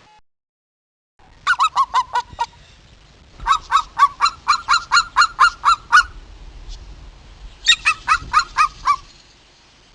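Goose honking in three quick bouts of short, repeated calls: about seven, then a dozen or so, then about seven more.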